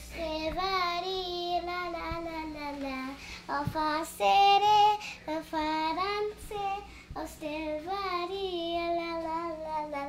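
A young girl singing a Spanish song in long, wavering held phrases, with short breaths between them and a loud high note about four seconds in.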